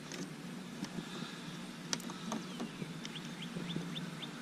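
A few light plastic clicks from handling the car's taillight and its plug, then, about three seconds in, a small bird's quick run of short, high chirps, about seven in a second.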